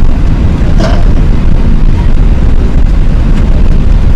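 Loud, steady low rumble inside the passenger cabin of an Airbus A380, the four-engined jet's engine and airframe noise, heavy enough to overload the recording. A brief click about a second in.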